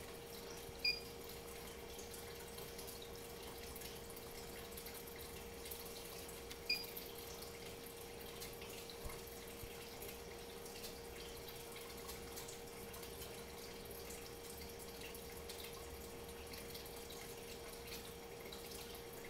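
Steady low-level room tone: a constant mid-pitched hum under a faint hiss, broken twice by a short high blip, about six seconds apart.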